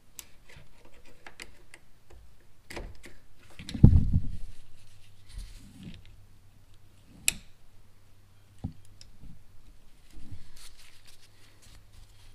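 Scattered small metallic clicks and knocks of a pick working at the retaining clip of a transmission cooler line fitting on a truck radiator. There is a louder low thump about four seconds in and a sharp click about seven seconds in, over a faint steady low hum.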